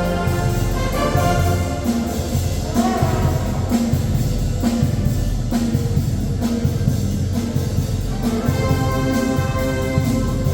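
A Oaxacan Sierra Mixe philharmonic brass band playing: held brass chords over a steady, regular beat.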